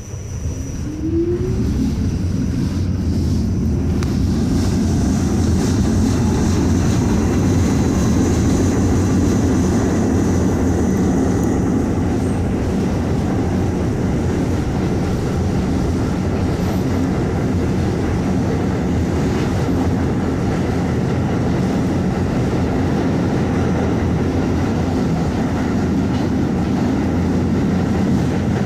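Staten Island Railway R44 subway car pulling out of a station, heard from inside the car. The motors wind up with a rising whine in the first second or two, then the wheels and running gear settle into a loud, steady rumble on the rails.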